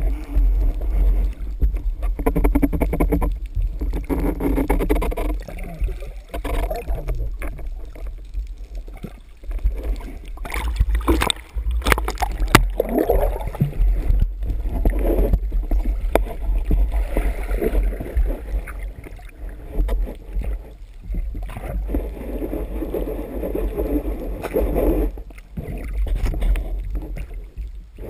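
Water rushing and gurgling against a speargun-mounted camera housing underwater as the spearfisher swims, with a steady low rumble and a cluster of sharp knocks about halfway through.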